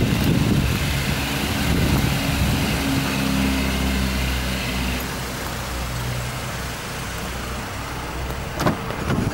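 Mazda Premacy minivan's engine idling steadily, with a short click and knock near the end as the door handle is pulled.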